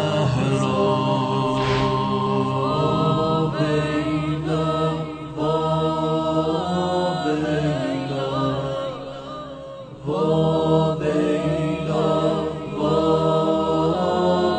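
A slow mourning lament (noha) chanted by voices in long, drawn-out notes. The singing fades near the ten-second mark, then comes back in full.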